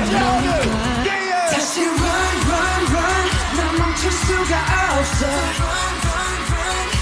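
Korean pop song with singing over a steady beat. The bass drops out for about a second, then the full beat comes back in.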